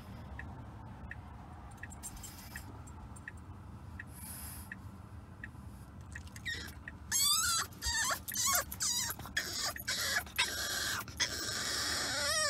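French bulldog puppy whining in loud, high-pitched, wavering cries from about halfway in, over the steady low rumble of a moving car heard from the back seat. Faint ticking about twice a second comes in the first few seconds.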